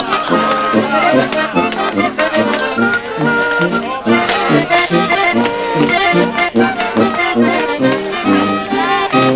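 Traditional folk dance tune played on accordion, with a bouncing melody over a steady, regular bass beat.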